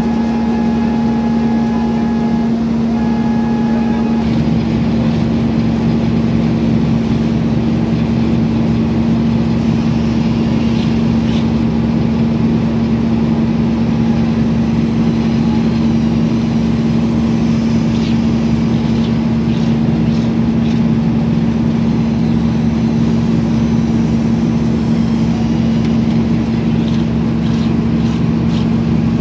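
Wirtgen slipform paver running steadily as it slipforms a concrete crash barrier: a constant loud machine drone with a strong steady hum. A faint whine stops about four seconds in, and a few light clicks come in the second half.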